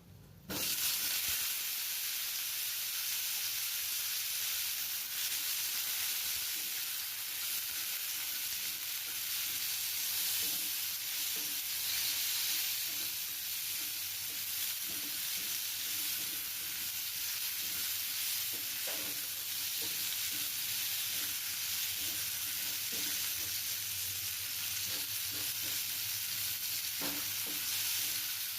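Food frying in hot oil in a pan, sizzling steadily from a sudden start about half a second in, with an occasional faint knock of a spatula stirring.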